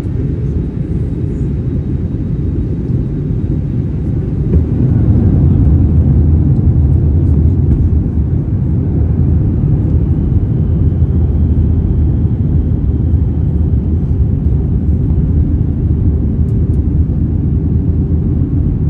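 Airbus A321 jet engines and airflow: a steady low rumble that steps up louder about four and a half seconds in and stays loud.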